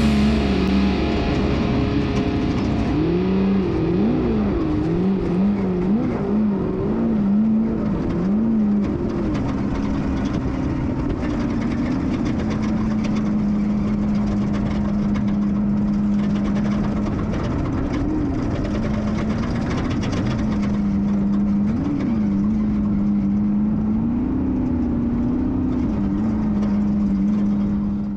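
Off-road race vehicle engine running hard, its revs swinging up and down repeatedly for several seconds, then holding steady with a few brief rises.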